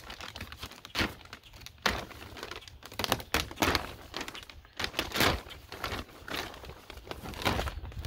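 Clear plastic sheeting crinkling and rustling in irregular bursts as it is bunched and pulled by hand.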